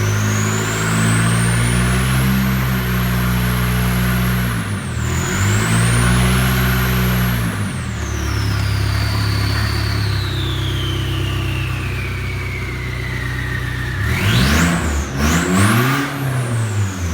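Chevy Cruze's turbocharged Ecotec four-cylinder running with its intake and exhaust disconnected, the open turbo whistling. The engine is revved and held, and the whistle climbs to a high pitch, dips briefly and climbs again, then sinks slowly as the revs come down. Near the end a few quick blips of the throttle send the whistle shooting up and back down.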